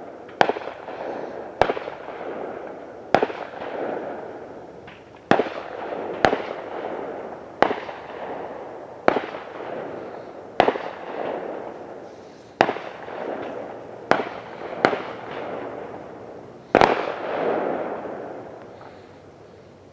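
Fireworks going off: a series of about a dozen sharp bangs, one every second or two, each trailing off in a fading rumble. The loudest bang comes near the end.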